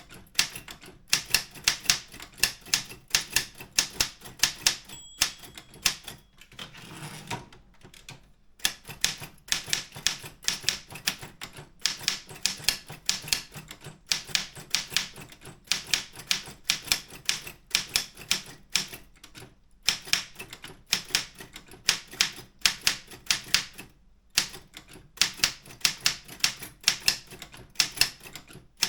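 Optima M14 manual typewriter being typed on in fast runs of sharp key strikes, with brief pauses. A short bell-like ring sounds about five seconds in, followed a second or two later by a softer sliding sound, typical of the margin bell and a carriage return.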